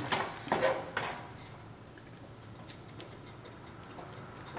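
Kitchen tongs clicking against a skillet while stirring a thick chicken and spaghetti mixture: a few sharp clicks in the first second, then only faint soft ticks.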